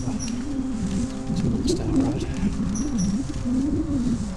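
Outdoor ambience with a low, wavering tone running through it over a heavy low rumble on the microphone, and a small bird chirping in quick two-note pairs, once near the start and again about three seconds in.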